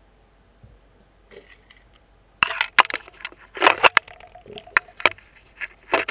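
Clicks, clinks and rustling from handling a dismantled Z Plus butane lighter insert close to the microphone. They start about two and a half seconds in and come as a run of sharp taps with a few louder bursts.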